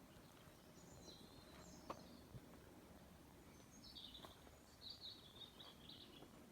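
Near silence: faint outdoor background with a few faint high bird chirps, a little over a second in and again in a cluster from about four to six seconds in.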